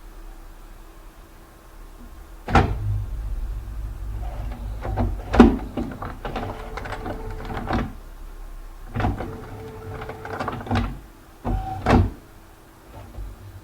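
Computer flatbed scanner at work: its carriage motor whirring in stretches, broken by a series of sharp mechanical clunks and clicks, with a low steady hum underneath.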